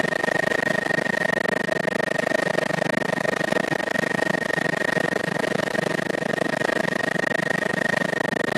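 Helicopter in steady flight, heard from aboard: an even engine and rotor noise with a steady high whine running through it.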